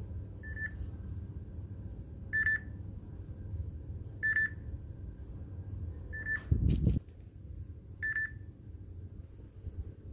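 Samsung Galaxy J2 Prime's loudspeaker playing short preview beeps as its volume sliders are dragged: five beeps about two seconds apart. A brief handling knock and rustle, the loudest sound, comes about two-thirds in.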